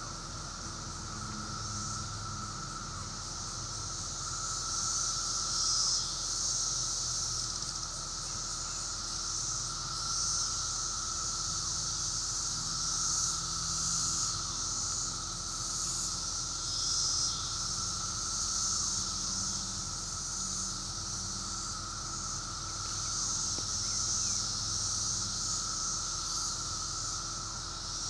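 Chorus of insects: a continuous high buzzing that rises and falls in level, over a steady lower drone.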